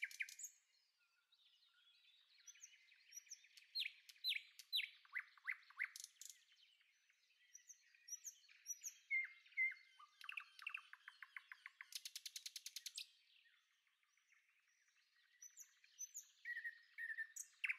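Small birds chirping faintly in short, quick sweeping notes, with a fast rattling trill about twelve seconds in.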